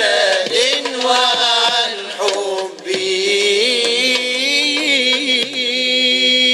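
A voice singing an Arabic nasheed in drawn-out, wavering ornamented notes, settling near the end into one long held note.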